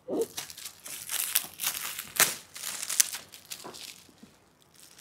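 Metallic foil gift wrapping being torn and crumpled open by hand: a run of irregular sharp crackles and rips, thinning out near the end.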